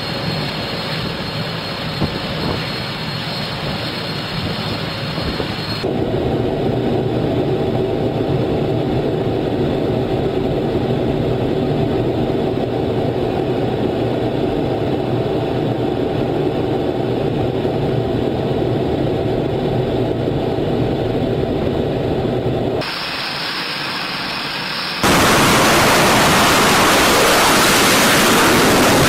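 Jet engine noise on an aircraft carrier flight deck: a steady engine hum and whine with held tones, changing abruptly between shots. About four seconds before the end it jumps to a loud, even roar as a fighter jet runs at full power on the catapult for a night launch.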